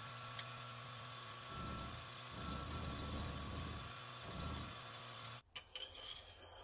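A machine running with a steady hum and a thin high whine, with low rumbles swelling a few times. It cuts off suddenly about five and a half seconds in, and a few light clicks follow.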